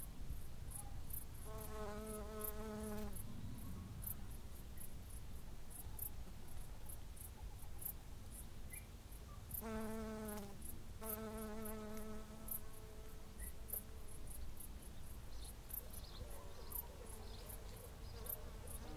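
Cricket-like insect chirping: short, very high chirps repeating evenly about two to three times a second over a low rumble. Twice, a longer wavering pitched tone of a second or two sounds beneath it.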